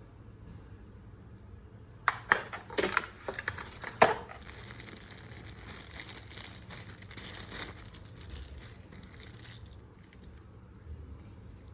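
Crinkling and crumpling of something being handled: several sharp, loud crackles about two to four seconds in, then a steady fine rustle that stops near the end.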